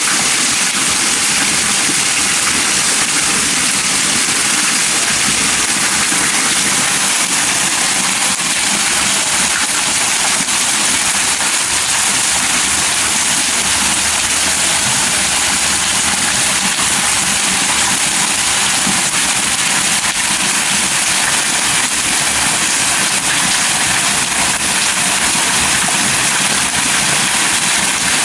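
Steady, heavy rainfall, a dense, even hiss of falling rain with no pauses.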